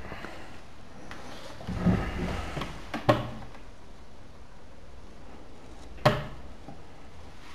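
Small hinged wooden cupboard doors of a wall unit being opened and shut: a few clunks about two seconds in, a sharp knock about three seconds in and another near six seconds.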